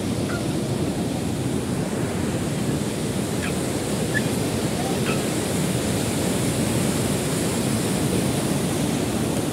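A fast mountain stream rushing over boulders in white-water rapids: a steady, continuous roar of water.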